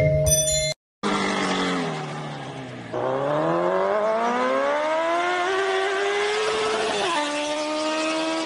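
A vehicle engine revving. Its pitch sinks for the first couple of seconds, then climbs steadily for about four seconds, then drops suddenly to a lower steady pitch near the end.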